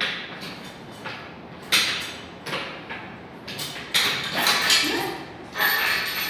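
Sofa parts knocking and scraping as they are handled and fitted together, in irregular sharp strokes, often less than a second apart.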